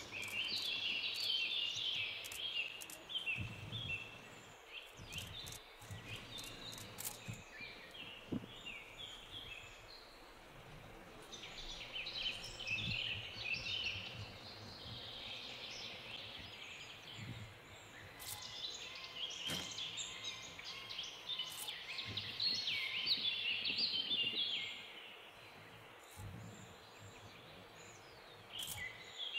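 Many small birds chirping and twittering together in busy spells, with quieter gaps between, over a soft outdoor background.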